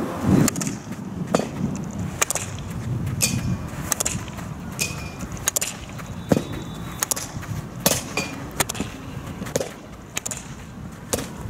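Field hockey stick striking balls on artificial turf one after another: a sharp crack roughly every second, some followed by a brief ringing tone.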